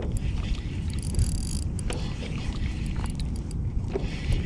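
Wind rumbling on the microphone over open water, with scattered short clicks and a brief high whirr about a second in, while a fish is being played on rod and reel from a paddleboard.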